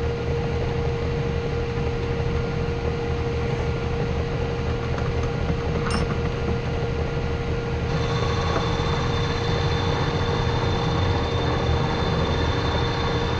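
Small belt-driven bench lathe running with a steady motor hum while facing the end of a pipe. A brief click comes about six seconds in, and a thin high whine joins about two seconds later and holds.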